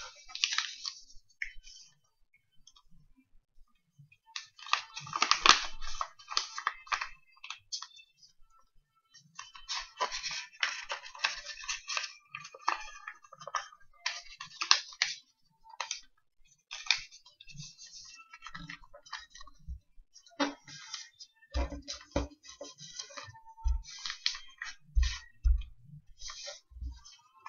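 A sheet of A4 paper rustling and crinkling as it is folded by hand, in irregular spells with short pauses between them. Over the last few seconds come several dull thumps as fists press the folds flat against a wooden table.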